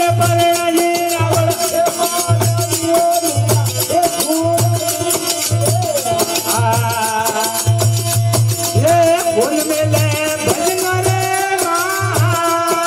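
Rajasthani folk devotional bhajan music: a man sings a held, gliding melody into a microphone over a low drum beat about once a second and a continuous jingling rattle of hand percussion.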